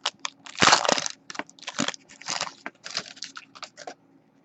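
Plastic wrapping crinkling and tearing in a string of short bursts as a sealed trading-card box is opened. The bursts stop about four seconds in.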